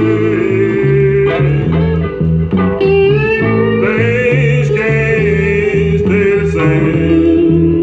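A guitar-led song with a steady bass line, played from a 45 rpm record on a 1951 RCA Victor J-2 record changer through a Fisher CA-40 tube amplifier and Electro-Voice Baronet speaker.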